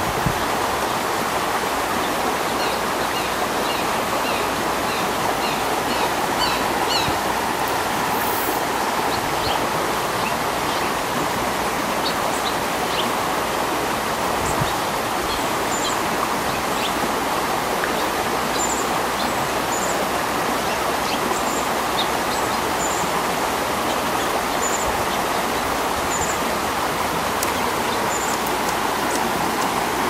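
Steady rushing noise like a running stream. Faint, high bird chirps sound over it: a quick run of chips in the first several seconds, then single high chips every second or two.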